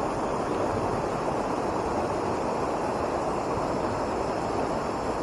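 Steady rush of a trout stream's flowing water, an even noise that holds at the same level throughout.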